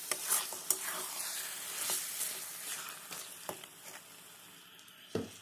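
Chicken pieces sizzling in a thick spiced masala in a pan as they are stirred and dry-fried without water, with scattered taps from the stirring. The sizzle gets quieter in the second half, and there is one knock near the end.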